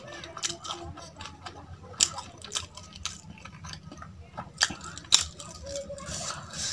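Close-miked chewing, with irregular crisp crunches and wet clicks of a mouthful of food. The sharpest crunches come about two seconds and five seconds in.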